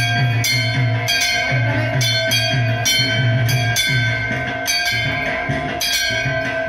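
Rhythmic temple puja music: a drum beating about twice a second with metallic bells struck in time, their ringing held over.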